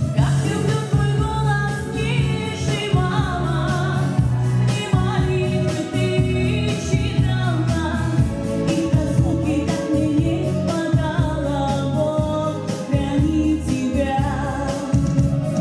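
Music with singing voices over a steady beat and bass.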